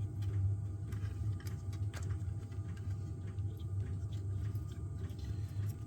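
Faint, scattered light clicks and taps of parts being handled and fitted inside an open laptop, over a steady low hum.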